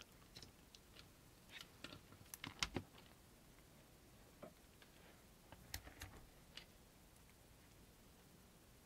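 Faint scattered clicks and taps of handling: a small plastic wall adapter being pushed into a power strip, the strongest clicks about two and a half seconds in, then light ticks as its cable plug and a multimeter probe lead are picked up.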